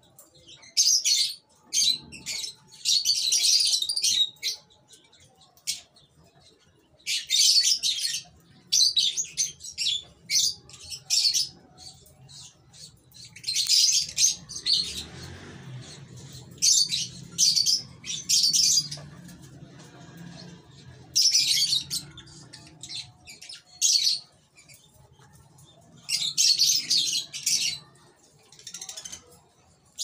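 White parrots calling in harsh, high-pitched squawks and chirps, coming in bursts of a second or two with short pauses between, about eight bursts in all.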